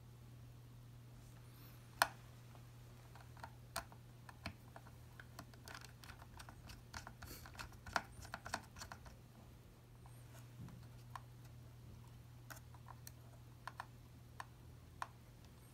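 Light clicks and taps of fingers and a small screwdriver tip pressing tiny antenna cable connectors onto an M.2 WWAN card inside an opened tablet. One sharper click comes about two seconds in, then a run of quick clicks in the middle, over a steady low hum.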